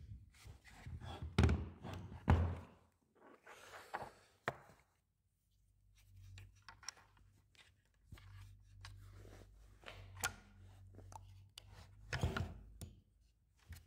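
A Festool Domino XL DF 700 joiner being handled and adjusted on a workbench: irregular knocks, thunks and metal clicks as its parts are moved and an open-ended spanner is fitted to the spindle to set the cutter. The louder knocks fall in the first few seconds and again near the end.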